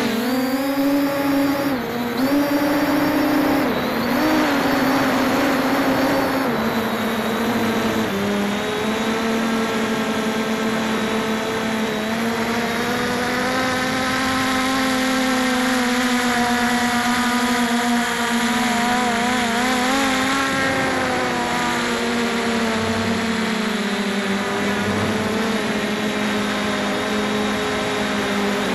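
MJX Bugs 2 quadcopter's brushless motors and propellers whining steadily in flight, heard from the camera on board, their pitch drifting up and down as the throttle changes.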